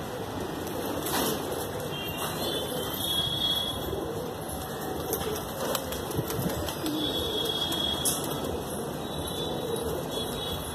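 Flock of desi high-flyer pigeons flapping their wings in flight, with a few sharp wing claps about one, six and eight seconds in, and low cooing.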